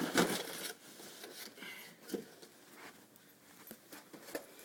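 Rustling and handling of the BB gun's packaging as the box is opened, with a burst of rustling at the start and scattered light clicks and knocks after it.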